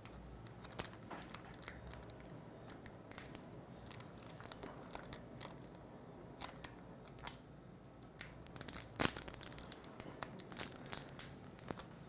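Adhesive pull tab under a realme 7i's battery being slowly peeled up and stretched, giving faint, irregular crackles and small clicks, with a louder crack about nine seconds in.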